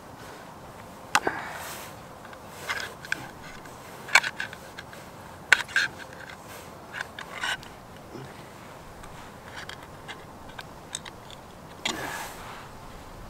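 Knife blade working a tin can open along its seam: a scattered series of sharp metal scrapes and clicks, loudest about four and five and a half seconds in.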